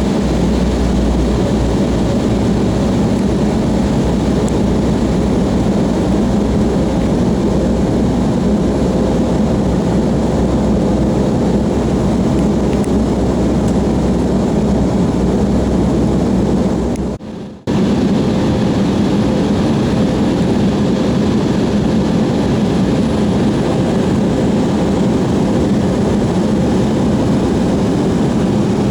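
Steady engine and airflow noise of an airliner in flight, heard inside the passenger cabin, with a deep hum and a faint steady tone above it. The sound drops out abruptly for about half a second around 17 seconds in.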